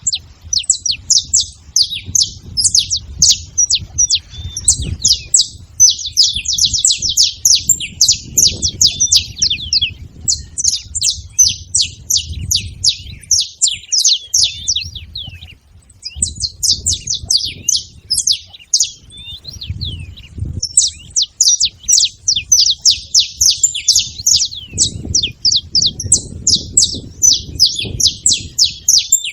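Several saffron finches calling together in a rapid, near-continuous stream of sharp, high chirps, with a brief lull about halfway through.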